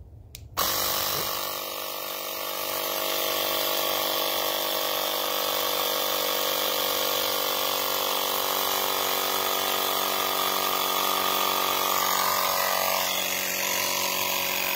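AirXwills handheld cordless tire inflator's small electric compressor starting about half a second in and running steadily, pumping up a flat bicycle tire toward a set 65 psi.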